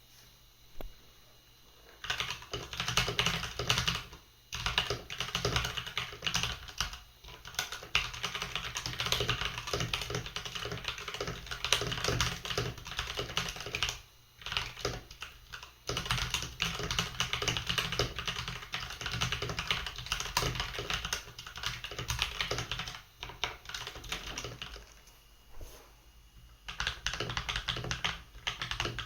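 Fast typing on a HyperX Alloy mechanical keyboard with Kailh Silver Speed switches: a dense run of key clicks and clacks. It starts about two seconds in and pauses briefly a few times.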